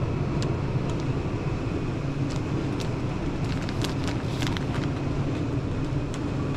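Steady low hum and rumble of shop background noise, with a scattering of light clicks and crinkles between about two and five seconds in.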